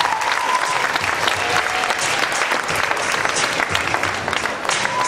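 Audience applauding, a dense steady clapping from a hall full of people, easing off slightly near the end.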